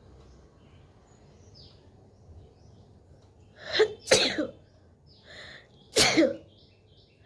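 A woman with a head cold sneezing twice, about four and six seconds in. Each sneeze is a sharp, loud burst.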